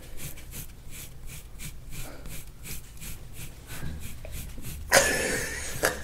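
Gua sha tool scraping over oiled skin on a back in short, quick strokes, about four a second. About five seconds in, a loud breathy burst lasting about a second.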